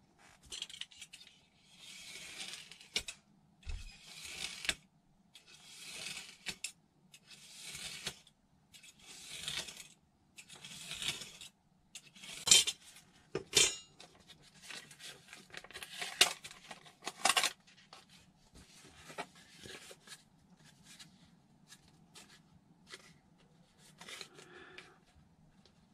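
Craft knife drawn along a steel ruler, slicing through a foam glider wing in about seven repeated scratchy strokes roughly one and a half seconds apart. After that come a few sharp clicks and knocks, then fainter rustling of the foam pieces being handled.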